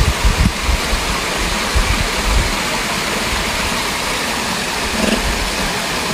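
Steady rushing of flowing water, loud and even, with a few low thumps in the first couple of seconds.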